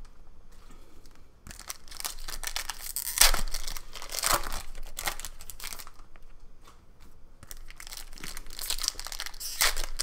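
Foil wrapper of a Panini Prizm basketball retail pack rustling as it is handled and opened, with trading cards shuffled by hand, in irregular bursts.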